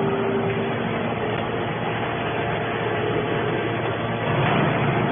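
Hydraulic scrap metal baler press running: steady machine noise from its motor and hydraulic pump, with a steady hum that stops under a second in and the noise growing louder near the end.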